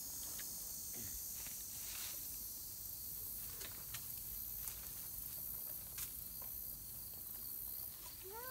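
Steady high insect drone of summer woodland, with scattered crunches and snaps of footsteps on dry leaves and twigs, and a child's brief call near the end.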